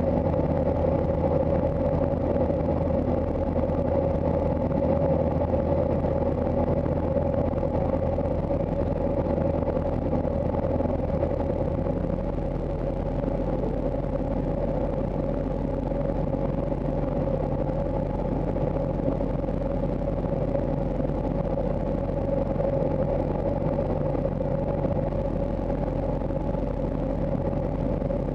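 RV-6 single-engine light aircraft's piston engine and propeller droning steadily, heard inside the cockpit on final approach. About twelve seconds in its low note drops to a deeper pitch and the drone gets slightly quieter.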